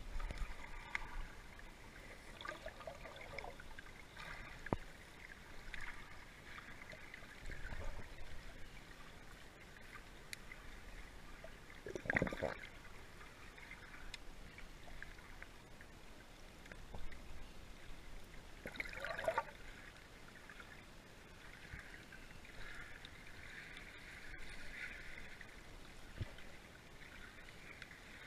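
Muffled underwater water noise picked up by a submerged camera: faint gurgling and bubbling, with two louder swishes of moving water about twelve and nineteen seconds in.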